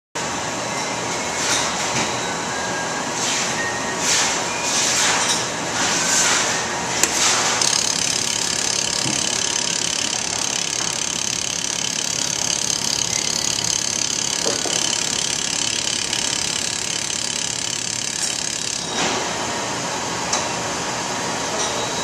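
Laser welding station running with a steady machine hiss. Short surges of hiss come and go over the first seven seconds. About eight seconds in, a steadier, brighter hiss sets in and cuts off suddenly at about nineteen seconds.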